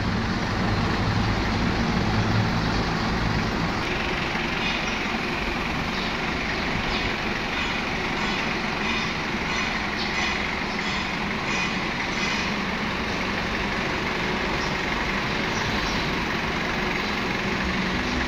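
Engine of a 1.5-tonne counterbalance forklift running steadily at low speed as the truck is driven slowly through a cone course.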